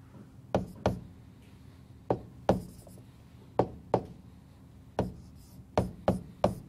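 About ten sharp taps, mostly in pairs, from a stylus or pen striking a tablet or touchscreen as handwriting is drawn stroke by stroke, over a faint steady hum.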